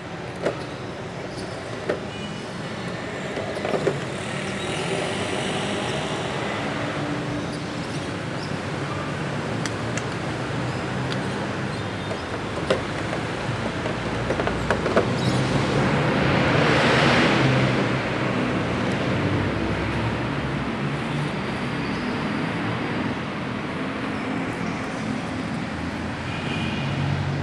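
Road traffic noise, with one vehicle passing loudest, swelling and fading about seventeen seconds in. A few sharp clicks come through as well.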